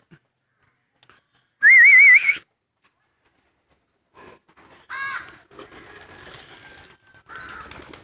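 A loud warbling whistle, rising slightly, about two seconds in, calling the homing pigeons to their feed. About five seconds in comes a short falling bird call, then soft scuffling from the flock.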